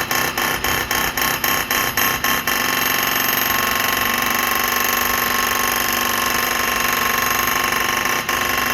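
A loud, harsh noise with a steady tone running through it, chopped into pulses about four times a second for the first two and a half seconds, then continuous.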